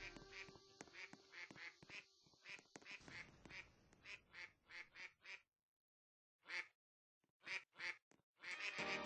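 A bird calling over and over in short, quiet calls, about two a second, with a pause of about a second a little past the middle.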